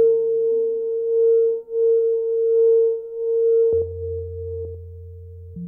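Experimental electronic music of pure, held tones: a single steady mid-pitched tone swells and dips in loudness. About two-thirds of the way in, it fades as a low, deep tone takes over.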